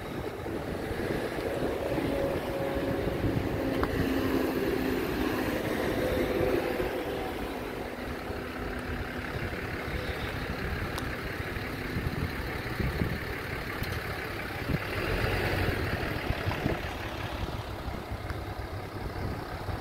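Diesel engine of a Caterpillar 12H motor grader running steadily, with wind noise on the microphone.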